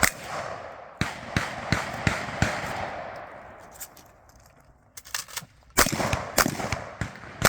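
Shotgun fired in rapid strings during a practical shooting stage: five shots in quick succession, then a pause with a few lighter clicks, then another fast group of shots near the end.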